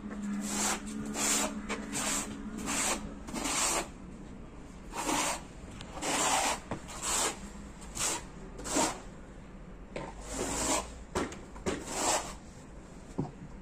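Steel notched trowel scraping and combing cement tile adhesive across a concrete floor: a series of rasping strokes, about one or two a second, with a short pause around four seconds in.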